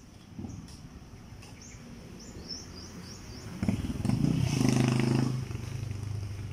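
A motorcycle tricycle's engine passes close by. It comes up suddenly about three and a half seconds in, is loudest for the next second and a half, then drops back but keeps running. Before it, a run of short, high, rising chirps.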